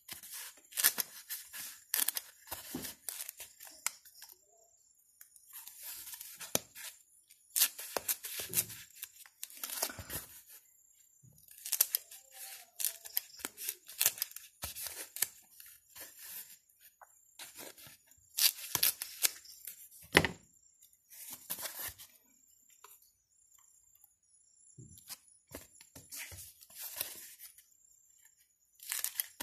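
Scissors cutting through a sheet of white packing foam, in bursts of cutting a second or two long with short pauses between them.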